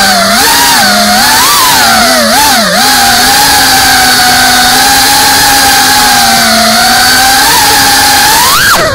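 FPV racing drone's motors and propellers whining, the pitch wavering up and down as the throttle changes. Near the end the pitch climbs sharply, then falls away.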